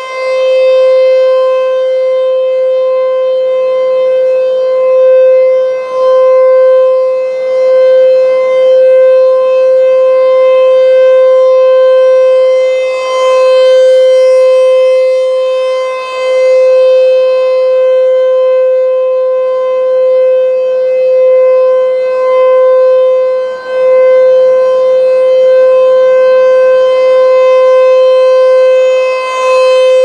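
American Signal T-128 Tornado rotating electromechanical warning siren sounding its steady Alert signal on a scheduled test. It holds one unwavering pitch, swelling and fading in loudness every few seconds as the rotating horn sweeps past.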